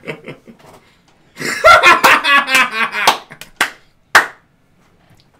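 Men laughing loudly while one claps his hands, the last few claps sharp and about half a second apart.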